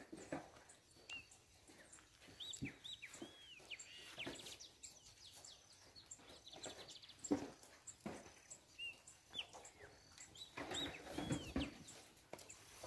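Birds calling in quick, arching whistled chirps, in two bouts, over faint farmyard noise with scattered low grunts and knocks. A single sharp knock stands out about halfway through.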